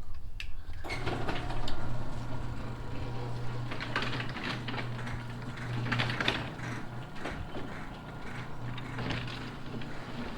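Electric garage door opener running as the garage door moves: a steady motor hum that starts about a second in, with scattered clicks and rattles from the moving door.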